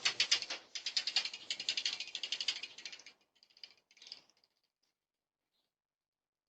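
A rapid rattling of many quick clicks for about three seconds, then a few fainter clicks, then it stops.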